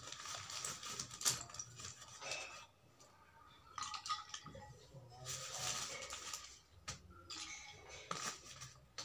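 Broken slate pencil pieces being swished by hand in a glass bowl of water: splashing, with the pieces clicking against each other and the glass, in several spells with short pauses between.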